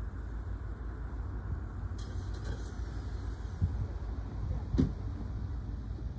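Low, steady rumble of a distant diesel freight locomotive approaching slowly, with a sharp click about two seconds in and a louder knock near the end.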